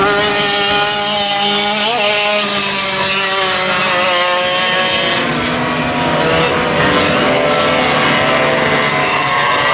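Several vintage race kart engines running at high revs on track at once, their notes overlapping at different pitches, one briefly rising and falling about two seconds in.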